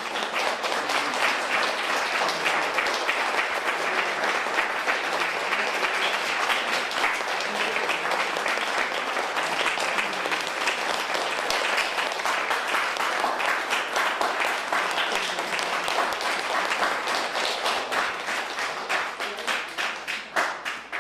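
Audience applauding steadily, tapering off near the end.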